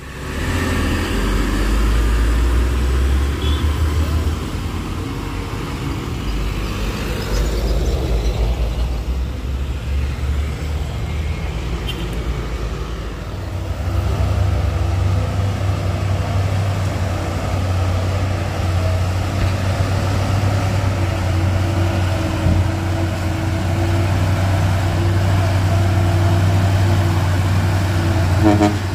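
Heavy trucks' diesel engines running close by on a hill road, with traffic noise. About halfway through it settles into a steady low engine hum, as of a heavy truck idling or crawling.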